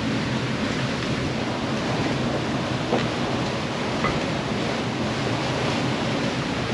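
Steady rush of strong wind and waves around a sailing catamaran under way in heavy weather, with a faint tick or two near the middle.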